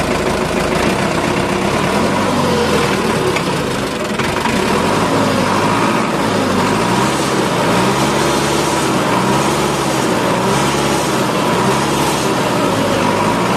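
A truck engine running steadily, its pitch rising and falling over and over.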